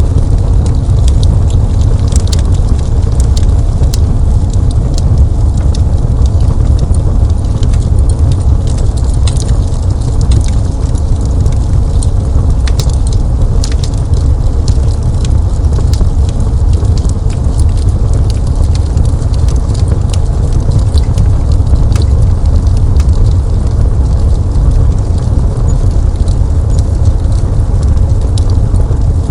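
Crackling fireplace fire: a steady low rumble with scattered sharp pops and crackles throughout.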